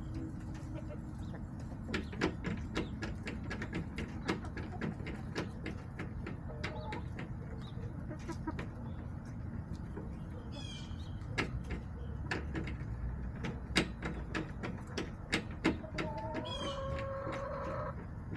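Backyard hens with many sharp, irregular taps and clicks throughout. Near the end a hen gives one drawn-out call, and high chirps come twice, about ten seconds in and again near the end.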